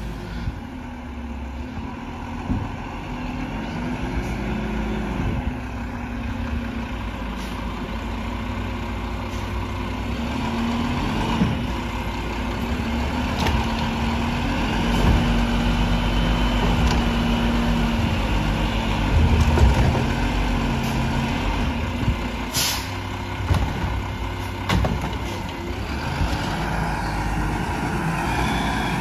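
Volvo automated side-loader garbage truck's diesel engine running as it creeps along the curb and picks up a trash cart; in the middle the engine revs up with a rising whine while the side arm lifts the cart. A sharp air-brake hiss cuts through about two thirds of the way in.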